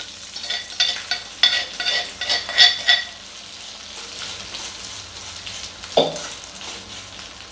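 Salted lemon pickle pieces frying in hot tempering oil in a kadai while they are stirred with a spoon. A run of loud scraping, clinking strokes against the pan comes in the first three seconds, then a steady sizzle, with a single knock about six seconds in.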